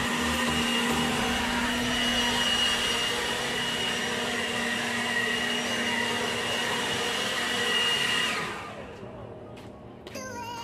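Handheld leaf blower running steadily, a motor whine over a rush of air, then switched off about eight seconds in, its whine falling in pitch as it winds down. A few faint clicks follow.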